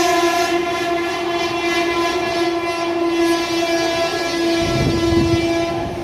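Electric locomotive horn held in one long steady blast as an express of ICF passenger coaches runs through at about 92 km/h, the coaches' rushing rumble and wheel clatter underneath.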